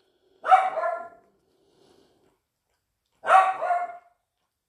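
A dog barks twice, about three seconds apart, each bark drawn out and loud.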